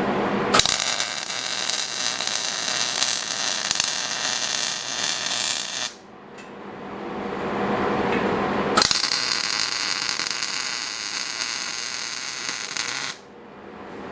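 Electric arc welding on steel: two runs of steady crackling hiss, each lasting about four to five seconds and cutting off suddenly, with a pause of a few seconds between them.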